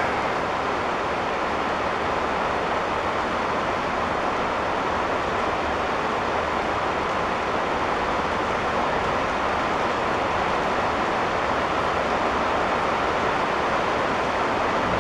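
Steady hiss of rain during a thunderstorm, an even wash of noise with no separate drops or thunderclaps standing out.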